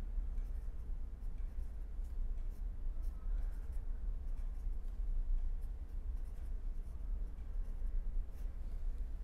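Pen scratching on paper in short, faint strokes as handwriting is written out, over a steady low hum.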